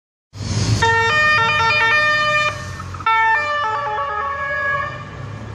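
A brass horn played by a roadside spectator blasts two short fanfare phrases of quick stepped notes, the second starting about three seconds in. A motorcycle engine rumbles low underneath.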